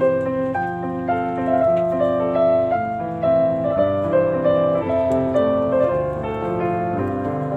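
Background instrumental music: a melody of held notes, changing every fraction of a second.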